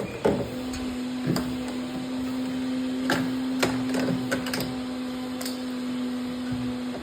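Steady electric motor hum from a washing machine under repair. It switches on about half a second in and cuts off near the end, with several clicks and knocks of parts being handled.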